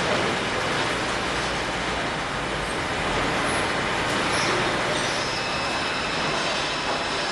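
Steady din of a machine shop: metalworking machine tools such as lathes and drill presses running together, with faint high whines joining after about five seconds.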